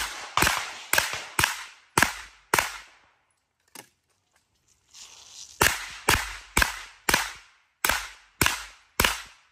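Pistol fired in rapid strings: six shots about half a second apart, a pause of about three seconds, then seven more shots at the same pace.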